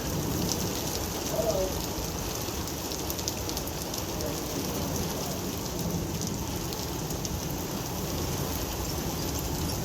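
Heavy rain pouring down steadily during a thunderstorm, with a low rumble underneath.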